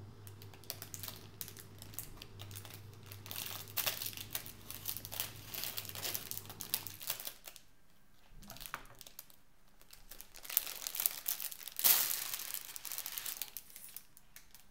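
Thin plastic film wrap being peeled and pulled off a clear plastic salad tray, crinkling and crackling irregularly, with a quieter lull in the middle and the loudest crinkling near the end.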